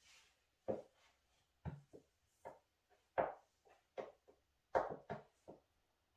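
Platform high heels knocking and scuffing on a hard floor as the wearer shifts her weight and turns in place. There are about nine light, irregular knocks over five seconds.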